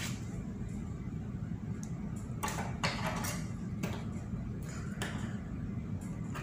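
Steady low hum of shipboard machinery, with a few soft, brief clicks and rustles as a hand picks through small metal fishing hooks on a wooden table.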